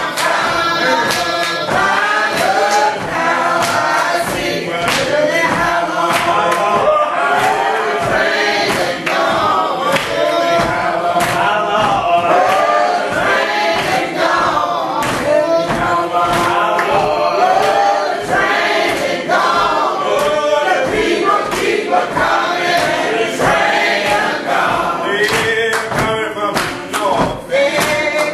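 Congregation singing a hymn a cappella, many voices together, with thumps or claps sounding all through the singing.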